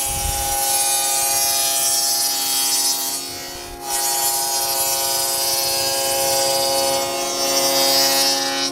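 Table saw with a dado blade running and cutting rabbets along a plywood panel: a steady motor tone under a dense cutting hiss, dipping briefly about three seconds in, then stopping suddenly near the end.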